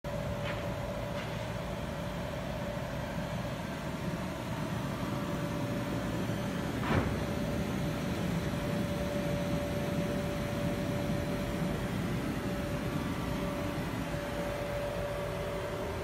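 Electric blower fan of an inflatable bounce house running steadily, a constant hum over a rushing of air, with a sharp tick about seven seconds in.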